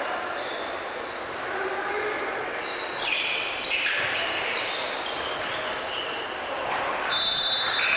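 Basketball game sounds in a large gym: the ball bouncing on the hardwood floor and sneakers squeaking as players run the court, with a sharp knock about three and a half seconds in.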